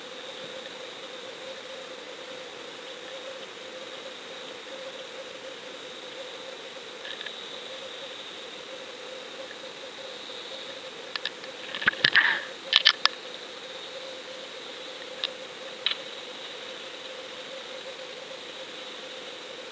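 Underwater sound picked up by a GoFish Cam camera lowered on a fishing line in deep water: a steady hum with a faint steady tone. About twelve seconds in comes a quick cluster of sharp clicks and knocks, and two more single clicks follow a few seconds later.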